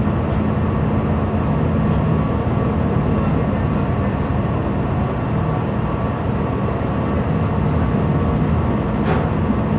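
Steady low drone of a ship's engine and machinery, a constant hum with a rushing noise over it, unchanged throughout.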